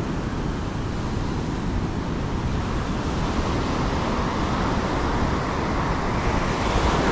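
Surf washing on a beach with wind rumbling on the microphone; a wave rushes in louder near the end.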